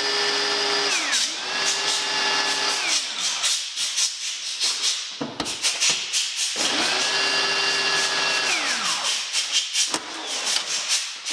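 Corded electric drill boring into a Subaru WRX's body sheet metal. It runs in three bursts, each speeding up to a steady whine and winding back down, with rattling clicks between them. The drill bit breaks near the end.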